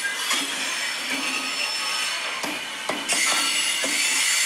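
Steel wheels of loaded HXA coal hopper wagons squealing on the rails as the train rolls past, a steady high-pitched whistling. It eases off about two and a half seconds in, with a few sharp clicks, and comes back stronger a moment later.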